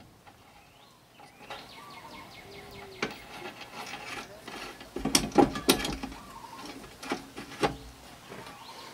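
Ratcheting clicks and small metal knocks as the indexing lock handle on a Ryobi BS904G bandsaw's table trunnion is fitted and turned to lock the table. Faint rapid ticking starts about a second and a half in, with a louder burst of clicks and knocks about halfway through.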